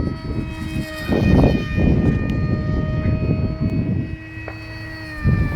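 Electric brushless motor and 6x4 propeller of a homemade foam RC plane whining, its pitch stepping up and down several times as the throttle changes. Loud bursts of rumbling wind noise on the microphone come through underneath.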